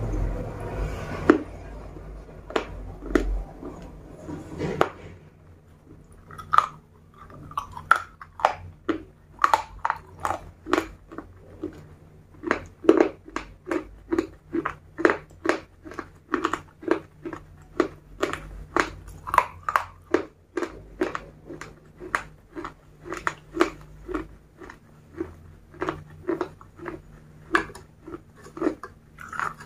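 Close-miked ASMR chewing of food dipped in melted chocolate sauce. Bites in the first few seconds are followed by steady chewing with crisp crunches, about two a second.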